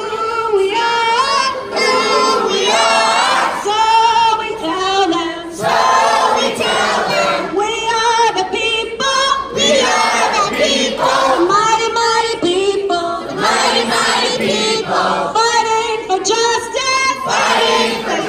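A group of people singing together, with a young girl singing into a handheld microphone among them.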